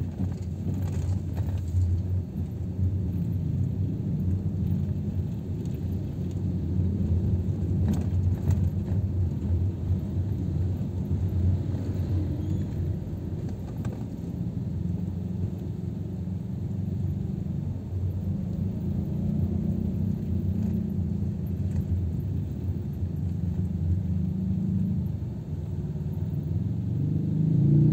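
Steady low rumble of a car's engine and tyres heard from inside the cabin while driving, swelling a little louder near the end.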